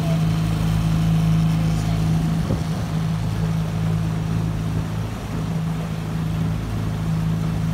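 Small tiller-steered outboard motor running steadily under way, its drone holding one pitch throughout, over a rush of water and wind.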